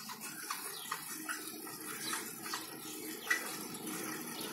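Bicycle rolling along an asphalt road: a steady rush of tyre and wind noise, with short, high falling chirps about every half second.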